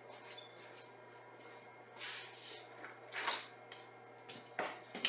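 A few soft rustles and light knocks as small cards are handled and lifted off a lighting console, over a faint steady hum.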